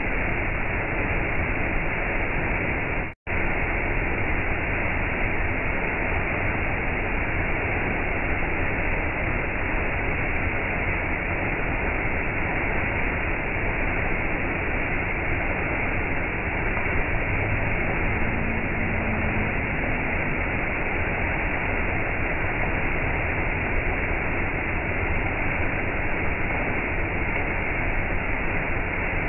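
Small waterfall pouring onto rocks and a shallow pool: a steady, even rush of falling and splashing water. It cuts out for an instant about three seconds in.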